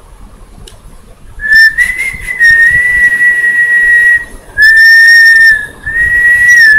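A woman whistling with her mouth, tongue curled into a U and held against her teeth. She whistles three long, steady, high notes starting about a second and a half in; the second note is short and slightly lower.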